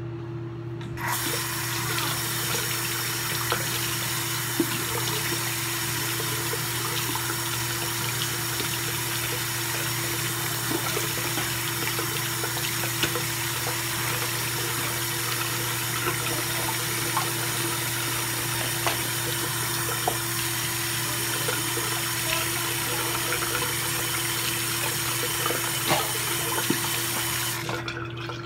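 Bathroom sink tap running steadily, turned on about a second in and off near the end, over the steady buzz of an electric toothbrush.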